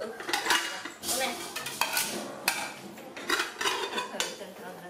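Kitchenware being handled: dishes and metal pans clattering and clinking in an irregular run of sharp knocks, some with a short ring.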